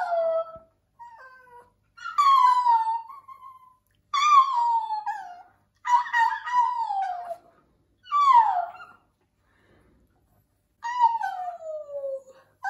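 Small chihuahua howling in a series of about six drawn-out, high-pitched howls, each sliding down in pitch, with short pauses between them.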